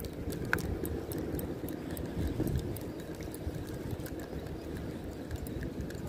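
Steady low rumble of wind on the microphone, with faint irregular clicking from a spinning reel being cranked to retrieve a lure.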